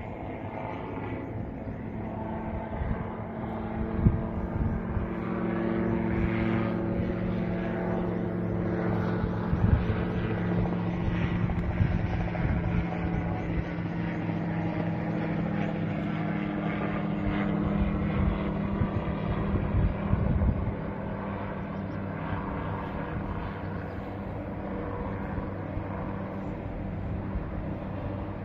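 A steady engine drone, holding one pitch with a little wavering, with a few brief jumps in loudness.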